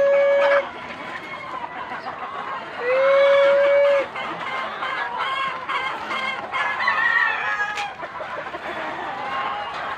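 Gamefowl roosters crowing: one long, held crow ends about half a second in and another runs for about a second from around three seconds in. Between the crows, a yard full of chickens keeps up constant overlapping clucking and calls.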